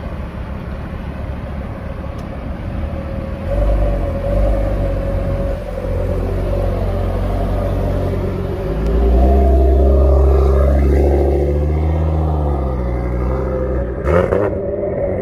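Audi TT RS's turbocharged 2.5-litre five-cylinder engine idling, then pulling away at low revs and driving off, its note rising and falling. There is a single sharp crack near the end.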